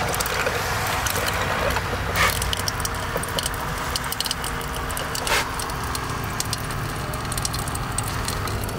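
Water running steadily from a small faucet into a stainless steel bowl sink, splashing on the metal, with two brief louder splashes about two and five seconds in.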